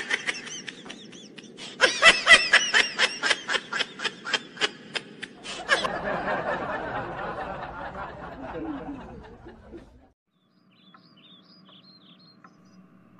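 Canned laughter sound effect after a joke: quick, high-pitched repeated giggling pulses, about four a second, then a softer spread of laughter that fades out about ten seconds in.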